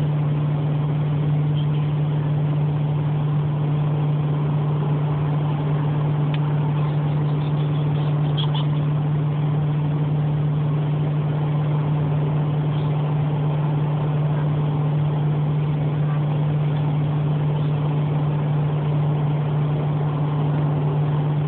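Steady drone of a moving car heard from inside the cabin: engine and road noise with a strong, constant low hum.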